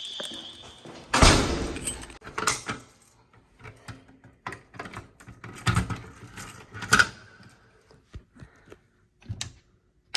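A run of knocks and clatters, the loudest a heavy thump about a second in, followed by lighter single knocks and clicks.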